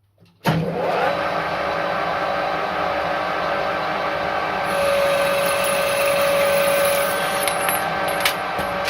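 Stanko 1A616 lathe running under a carbide-insert parting cut, with the saddle left unlocked: a steady mechanical whine with several held tones. It comes in suddenly about half a second in, a clearer tone rises above it around the middle, and a few sharp clicks sound near the end.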